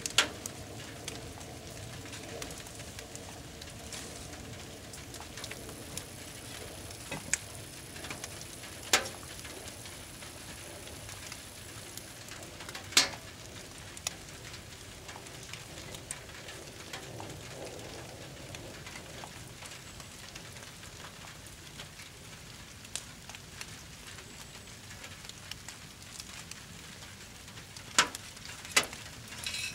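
Brush fire burning in the rain: a steady hiss of rain and fire with the wood crackling, broken by several sharp pops, the loudest about 13 seconds in and two close together near the end.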